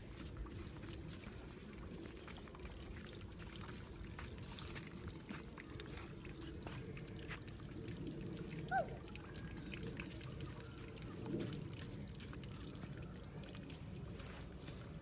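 Steady low outdoor background noise with soft, scattered scuffs of a toddler's feet on sand, and one short high squeak about nine seconds in.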